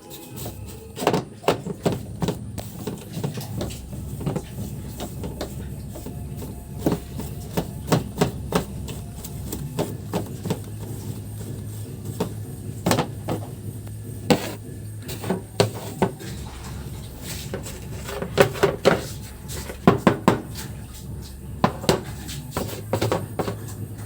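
Washing machine spin-dryer motor running with a steady low hum, with many sharp clattering knocks over it. The hum stops about two thirds of the way through and starts again near the end.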